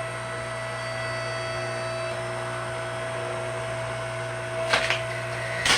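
Electric log splitter's motor starts and runs with a steady hum as the ram pushes into a spruce log; the wood cracks sharply about five seconds in and again near the end as it splits.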